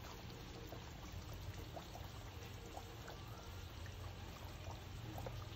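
Mustard oil drizzled from a bottle over fish curry in a pan: a soft, faint pouring sound with a few small scattered pops.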